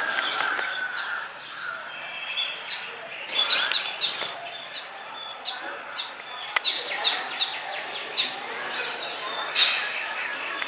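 Several songbirds chirping and calling at once: a busy mix of short high notes and quick trills, with a few louder calls standing out.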